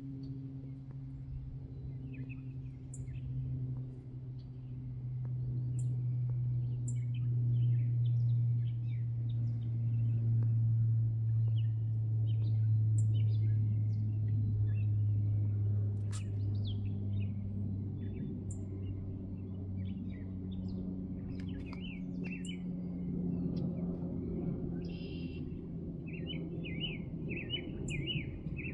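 Distant drone of a high-flying four-engine jet airliner: a low hum that swells, then slowly falls in pitch as the plane passes. Small birds chirp throughout, with a quick run of chirps near the end.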